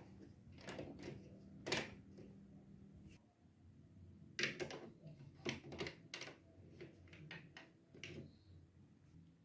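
Irregular light clicks and clacks of plastic toy pieces of a Duplo-block marble run, sparse at first, then a quick run of them from about four and a half seconds in.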